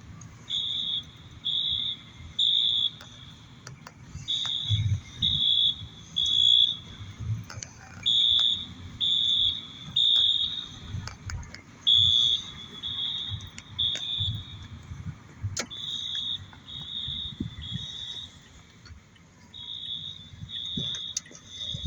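School fire alarm horns sounding in the temporal-three evacuation pattern: three high, steady beeps about a second apart, then a pause of about a second and a half, repeating. Low thumps and clicks run underneath.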